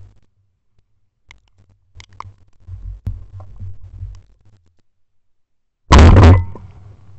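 A single shotgun shot about six seconds in, very loud and close, with a short echo trailing after it. Before it, only a low rumble and a few faint clicks.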